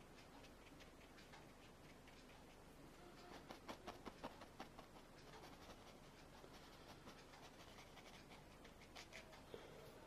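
Faint taps and scratches of a small paintbrush dabbing and blending oil paint on the painting. A quick cluster of taps comes about three to five seconds in, and a few more near the end.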